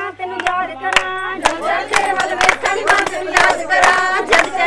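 A group of women singing and calling out loudly over steady hand clapping, roughly two claps a second.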